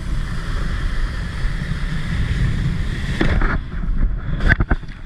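Wind buffeting the microphone over rushing water, as from a wakeboard ride on the water. The rush changes abruptly about three and a half seconds in, and a few sharp clicks follow near the end.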